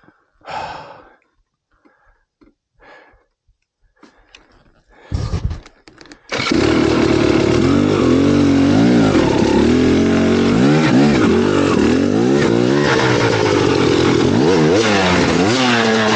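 Motorcycle engine starting about six seconds in, after a few faint knocks and a short burst, then running loudly with the revs rising and falling.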